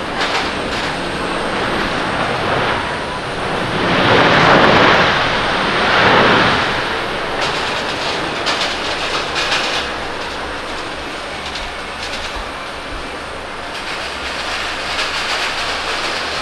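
Boeing 787-10 airliner rolling out after touchdown, its jet engines in reverse thrust. The engine noise swells loudest for a couple of seconds about four seconds in, then eases to a steadier rumble as the aircraft slows.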